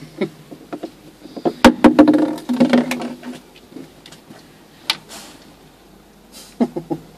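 Sharp clicks and crinkles of an empty plastic water bottle being handled by a dog and knocked onto a lift's carpeted floor, clustered about one and a half to two seconds in, with one more click near five seconds. A short voice-like sound follows the first clicks.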